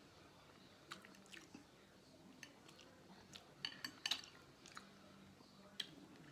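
Close-up eating sounds: soft, wet mouth clicks and lip smacks of someone chewing food, scattered through, with a quick run of them about three and a half to four seconds in.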